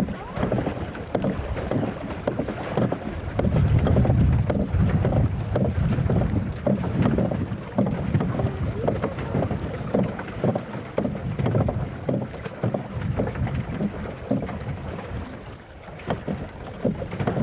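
Wind buffeting the microphone in an uneven low rumble, over water lapping and splashing close by.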